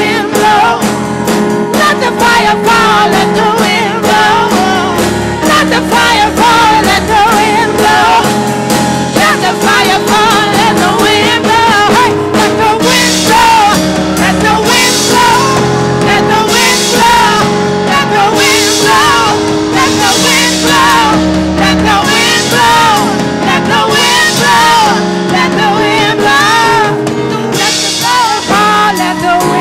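Worship music: voices singing over a band with drum kit and guitar, loud and continuous.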